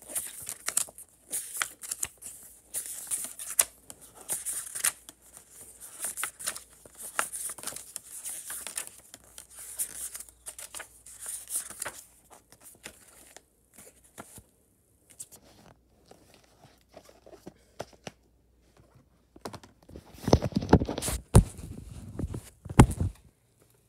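Glossy paper pages of a booklet being handled and turned, with crisp rustling and crinkling for the first half and sparser faint rustles after. Near the end comes a louder burst of rubbing and a few knocks.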